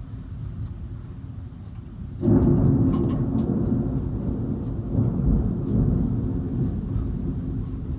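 Thunder in a severe thunderstorm: a sudden loud low rumble breaks in about two seconds in and keeps rumbling, over a quieter steady rumble of the storm before it.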